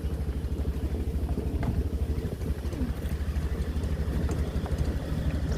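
A vehicle running along a road, a steady fast low throb of engine and road noise.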